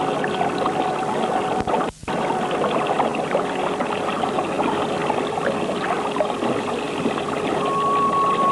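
Steady rush of running water, with a brief dropout about two seconds in. A held musical note comes in near the end.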